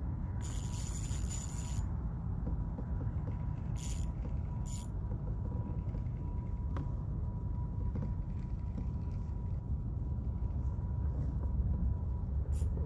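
Steady low wind rumble buffeting the microphone, broken by short high hissing bursts: one of about a second and a half near the start, two brief ones around the middle, and one near the end.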